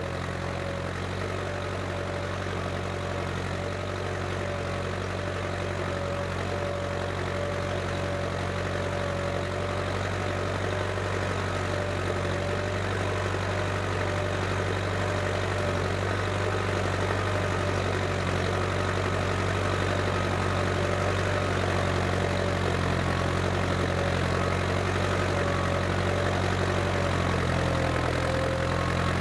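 Case International 885XL tractor's diesel engine running steadily at constant revs under ploughing load.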